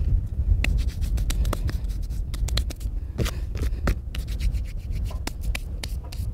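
Wind buffeting the microphone in a steady low rumble, with irregular scratching and clicking handling noise scattered through it.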